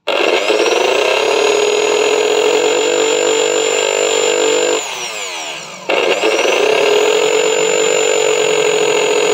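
Bajaj mixer grinder's universal motor running at full speed with a high whine. About five seconds in it is switched off and winds down with falling pitch, then starts again a second later. It runs noisily, which the repairer puts down to either a worn bush or a damaged armature shaft.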